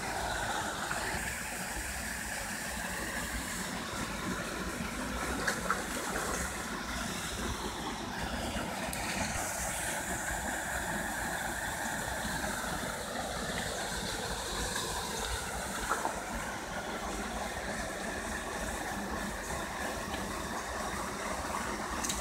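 Steady rush of a small waterfall pouring into a river pool, with a few brief clicks about five and sixteen seconds in.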